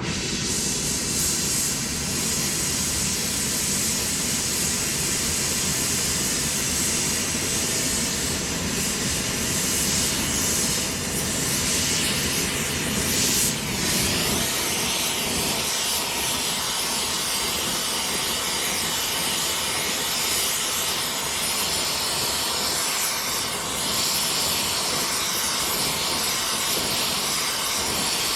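Gas heating torch burning with a steady rushing hiss, heating the dented steel axle housing so the dent can be hammered out. Its low rumble drops away about halfway through.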